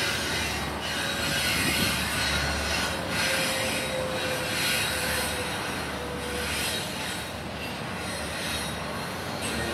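Double-stack intermodal container train rolling past: a steady rush of steel wheels on rail that swells and eases about once a second as the cars go by. A thin wheel squeal is held from about a second in until past the middle.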